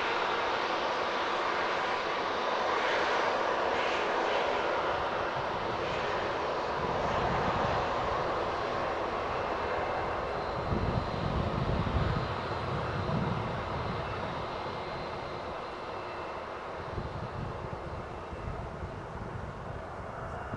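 Embraer E190-E2 jet engines (Pratt & Whitney PW1900G geared turbofans) running: a steady rushing hiss that slowly fades over the second half.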